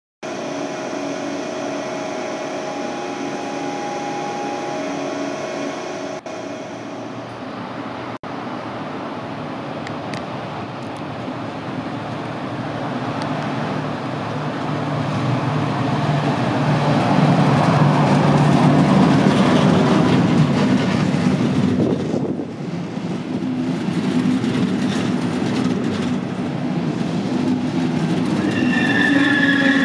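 A DB Class 112 electric locomotive hauling double-deck coaches rolls along the platform, its running and rolling noise building to its loudest as it passes the microphone. A high, several-toned squeal from the train sets in near the end. The first few seconds hold a steadier hum with a few even tones before the train noise takes over.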